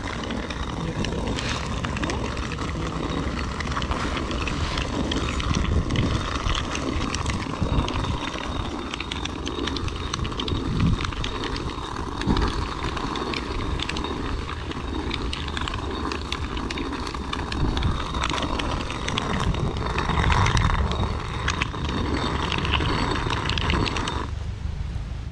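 Stone hand mill (chakki) grinding black gram: the upper stone is turned round on the lower one, giving a continuous gritty stone-on-stone grinding whose loudness swells and eases.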